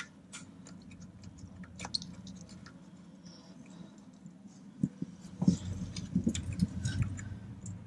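Faint metallic clicks and scrapes of a deep socket being worked onto a corroded 10 mm nut on the starter, turning into louder knocks and rubbing about five seconds in. The socket won't seat on the rusted nut.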